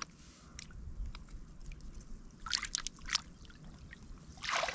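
Hands sloshing and splashing in shallow muddy rice-paddy water, groping through the mud for snails. A few short splashes, the biggest near the end.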